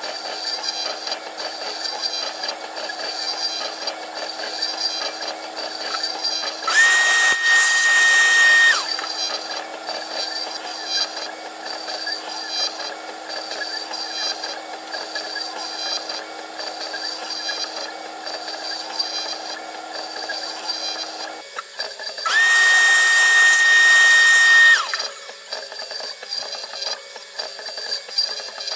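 CNC-converted PM-25MV mini mill running a toolpath, with a steady background of machine noise. Twice it is broken by a loud, steady, high whine about two seconds long that glides up at its start and down at its end, typical of the stepper motors driving a fast axis move.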